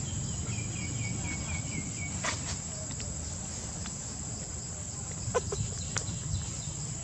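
Steady high-pitched drone of forest insects, with a quick run of about seven high chirps in the first two seconds and a few faint clicks.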